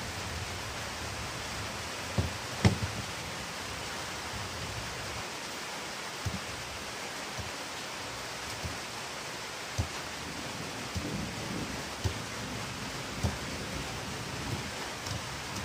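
Steady hiss with scattered light knocks and taps, the loudest about three seconds in, from a plastic lamp speaker being handled and set down on a wooden workbench.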